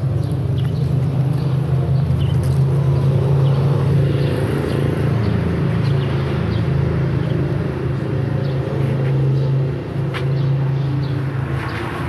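A steady low engine hum, like a motor vehicle running, with a few faint short high chirps above it.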